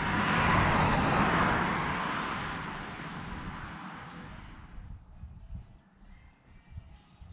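A road vehicle passing, its tyre and engine noise loudest about a second in and fading away over about four seconds. Wind rumbles on the microphone, and a few birds chirp faintly near the end.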